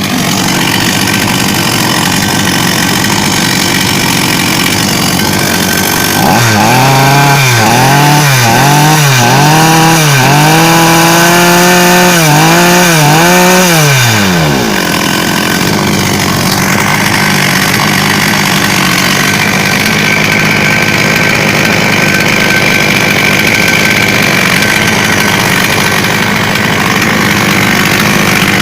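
Chinese two-stroke chainsaw running after a major overhaul: it idles steadily, is revved up and down several times in quick succession from about a quarter of the way in, and drops back to a steady idle around the middle.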